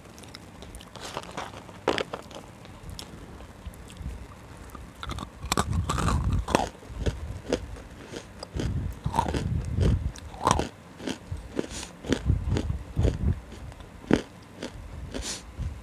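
Close-miked biting and crunching of dry, roasted dark chunks: a string of sharp crackling crunches over low chewing.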